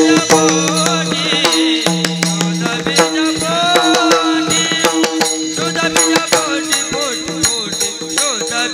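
Devotional kirtan music: harmonium holding steady notes under a wavering sung melody, with hand cymbals and drum keeping a quick rhythm.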